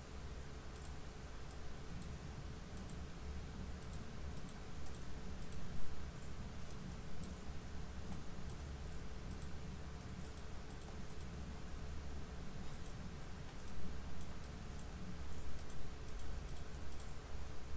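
Computer mouse clicking repeatedly, a series of light, sharp clicks, over a steady low hum of room equipment.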